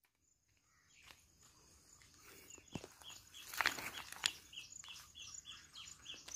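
Outdoor ambience fading in: a short high chirp repeating about three times a second, with a few sharp knocks and rustles around the middle.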